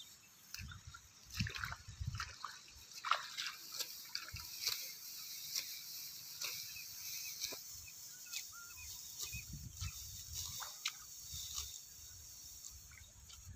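Dry, flattened rice stalks rustling and crackling in irregular clicks as they are gathered and pulled by hand, with wet squelches from the waterlogged paddy mud underfoot and occasional low thuds.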